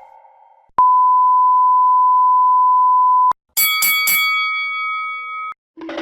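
A steady censor bleep held for about two and a half seconds, then cut off sharply. It is followed by a few quick bright strikes and a ringing chime that stops abruptly.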